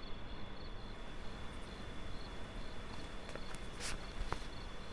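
Quiet room tone with a faint steady high hiss and faint repeated high chirps. About four seconds in, a brief rustle and a small click as the flap of a leather folder is lifted open.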